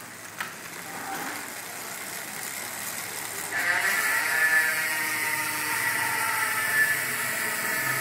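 Chris King Ring Drive rear hub freewheeling as the rear wheel spins. It is quieter at first, then from about three and a half seconds in it gives a loud, steady, high-pitched buzz.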